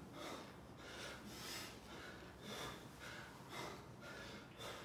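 A man breathing hard and fast from exertion during dumbbell squats, a rush of air about twice a second.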